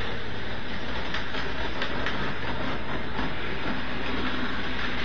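Lionel GP-38 O-gauge model diesel locomotive running along three-rail track under command control: a steady whir of its electric motor and gearing and its wheels on the rails, with a few faint clicks. It has no engine-sound board fitted, so only the mechanism is heard.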